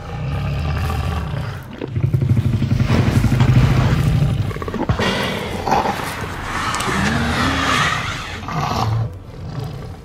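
Tyrannosaurus rex roar sound effects, one after another. There is a deep roar at the start, then a longer, louder one from about two seconds in, then more roars with a rising-and-falling cry about seven seconds in.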